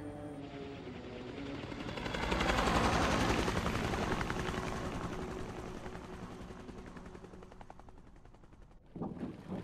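Military helicopter's rotor blades chopping in a rapid, even beat. It swells to its loudest about three seconds in, then fades as the helicopter flies away, and cuts off abruptly near the end.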